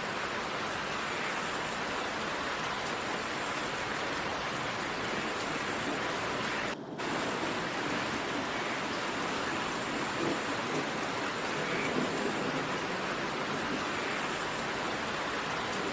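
Steady heavy rain of a downpour, an even hiss with no thunder, briefly cutting out for a fraction of a second about seven seconds in.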